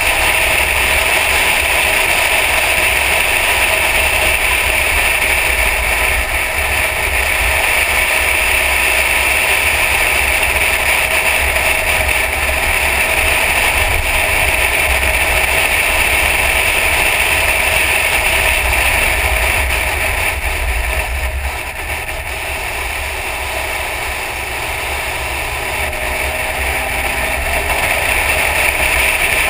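Mercedes-Benz E63 AMG at speed on a race track: a steady rush of wind buffeting and car noise at the onboard camera. It eases off briefly about two-thirds of the way through, and a faint rising engine note comes in near the end.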